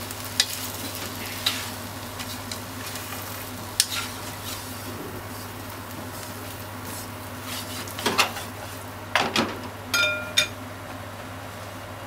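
Soba noodles, onions and meat sizzling in a frying pan while being stirred and tossed with wooden cooking chopsticks, with scattered clicks of the chopsticks against the pan. Near the end come a few louder knocks, the last two ringing briefly.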